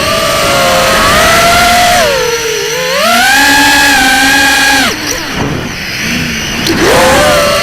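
FPV quadcopter's electric motors whining, the pitch dipping and rising with the throttle. About five seconds in the whine drops away sharply, then climbs back up about two seconds later.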